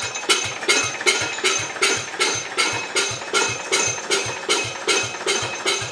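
Garden tractor engine being turned over by its starter without firing, in a steady rhythm of about four pulses a second. The cranking drives the hydraulic pump to push fluid through the new lines while they are bled.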